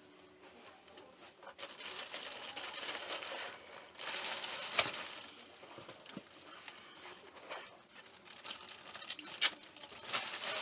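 Packaging being handled and pulled at while a box is opened: bursts of rustling and crinkling, with a few sharp clicks, the loudest near the end.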